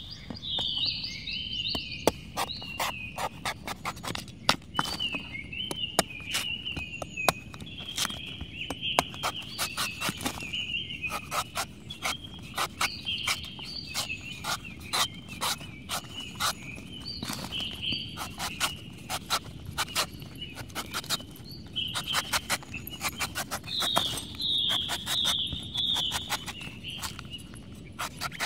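A steel cleaver shaving and slicing the green husk off a young coconut, a quick irregular run of crisp cuts and knocks. Steady high chirping goes on behind the cutting.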